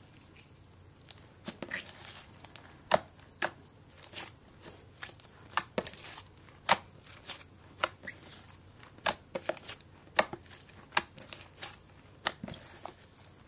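White-and-blue slime being stretched, poked and pressed by hand, giving off irregular sharp pops and crackles as its sticky surface pulls and breaks.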